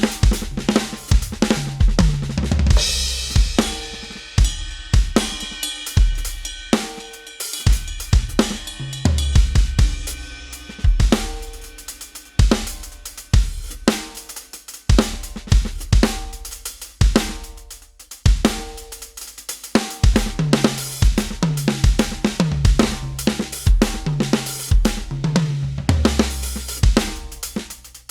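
Addictive Drums 2 sampled acoustic drum kit, triggered from an Avatar SD301-1 electronic kit: a continuous rock groove of kick, snare and hi-hat with cymbal crashes. There is a loud crash about three seconds in, and tom fills follow in the second half.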